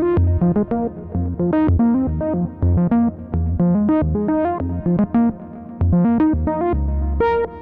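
AJH Synth MiniMod Eurorack modular synthesizer playing a quick sequenced pattern of short pitched notes over a low bass line.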